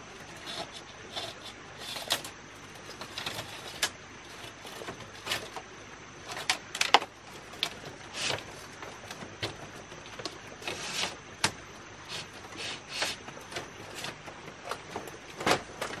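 Irregular knocks, scrapes and rustles of materials being handled and worked by hand, roughly one or two a second. The sharpest knock comes about seven seconds in, and another strong one near the end.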